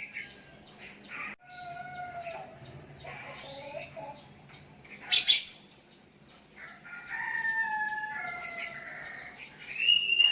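Sooty-headed bulbuls chirping and whistling back and forth, short bright notes and glides from more than one bird. A short, loud harsh burst cuts in about five seconds in, and from about seven seconds a rooster crows in one long, slightly falling call.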